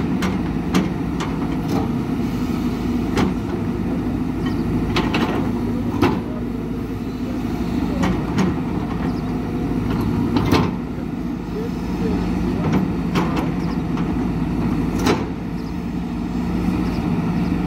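Hidromek 230LC excavator's diesel engine running steadily under digging load. Irregular sharp clanks and knocks sound over it as the bucket works the soil.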